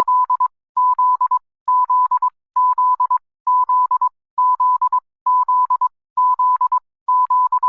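Emergency alert system alarm tone: a single steady pitch near 1 kHz, beeping in bursts about once every 0.9 s, each burst broken into several quick stuttering pulses. It sounds like Finland's alert tone.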